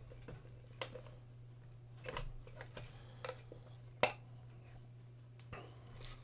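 Faint, scattered plastic clicks and taps as a clear plastic lens dome is lifted and handled against a night light's plastic housing, the sharpest about four seconds in, over a steady low hum.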